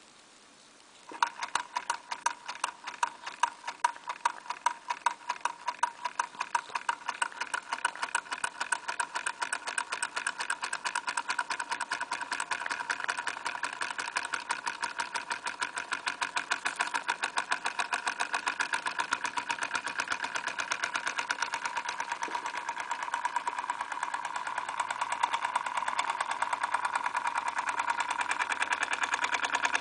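Jean Comby toy live-steam engine starting about a second in, after a turn of its flywheel by hand: separate loud beats of steam and mechanism that quickly speed up into a fast, even running beat.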